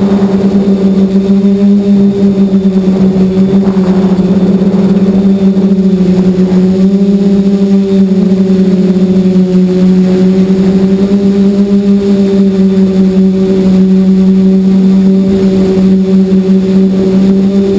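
QAV540 quadcopter's electric motors and propellers humming steadily in flight, heard from its onboard camera. The low, even drone holds one pitch that wavers only slightly.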